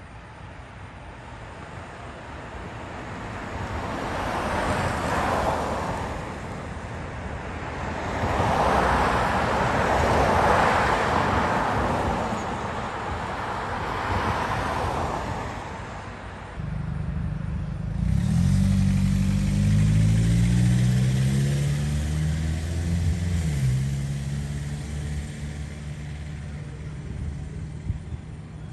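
Road traffic: cars passing one after another, each swelling and fading. In the last third a low engine hum takes over, its pitch wavering.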